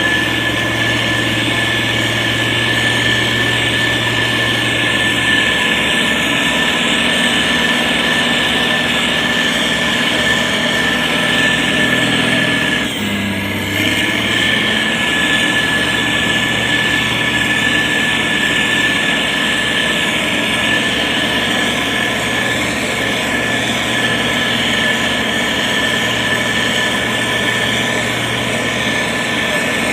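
Diesel engine of a heavy road-construction machine running steadily, with a steady high whine over the engine note; the engine note briefly dips and shifts a little before halfway.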